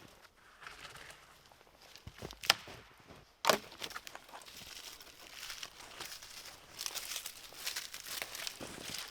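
Crinkling and crunching handling noises, with sharp single knocks about two and a half and three and a half seconds in, then a close run of crackling clicks toward the end.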